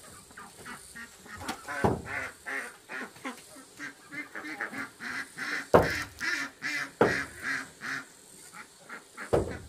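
Fowl calling in a rapid run of short calls, several a second, with a few sharp knocks mixed in.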